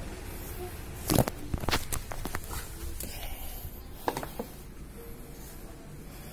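Handling noise from the phone and a clear plastic cover being moved: a quick run of sharp knocks and clicks about a second in, the loudest, and a few more around four seconds in, over a steady low background rumble.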